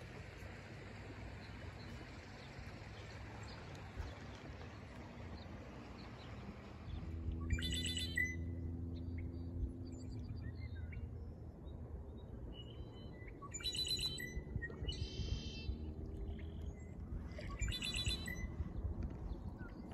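Riverside birds calling: a high, patterned call repeats three times, about five seconds apart, starting about seven seconds in, with a shorter trill between the second and third. A low, steady rushing noise runs underneath.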